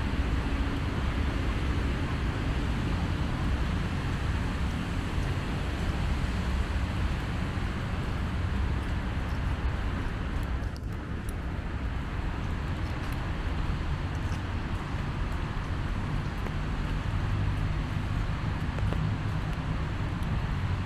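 Steady city street traffic: cars passing, with a continuous low rumble and hiss.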